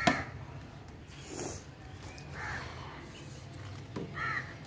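A bird calling outdoors with a few short, harsh caws spaced about a second or two apart, over a faint steady low hum; a sharp click at the very start is the loudest sound.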